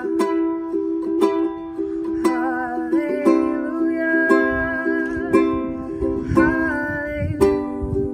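Ukulele strummed in slow chords, about one stroke a second, with a voice singing a slow melody over it.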